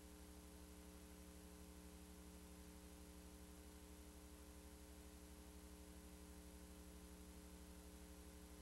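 Near silence: a faint, steady electrical hum over a low hiss, with no other sound.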